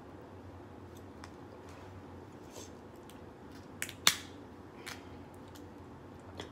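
Crab shells being cracked and snapped open by hand: a few sharp cracks, the loudest about four seconds in.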